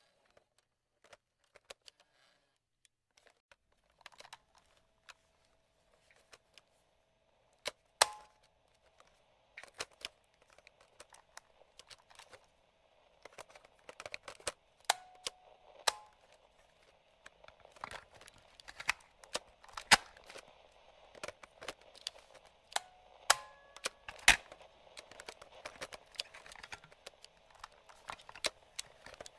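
Sharp plastic clicks from the slide switches and levers of a vintage radio cassette recorder, sparse at first and then coming thick and fast after about eight seconds. Behind them runs light crackling radio static with a few brief whistling tones.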